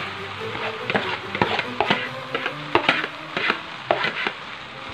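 Hot metal wok sizzling as thin kuey teow rice noodles are tipped in from a plastic bowl, with a run of about ten sharp knocks against the wok from about one to four seconds in.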